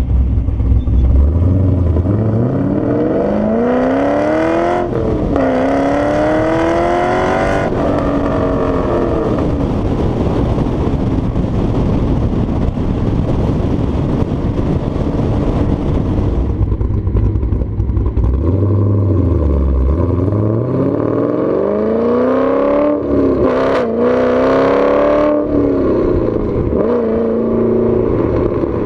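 2014 Chevrolet Camaro 1LE's 6.2-litre V8 accelerating hard, twice: each time the note climbs, drops at a gear change and climbs again before easing off.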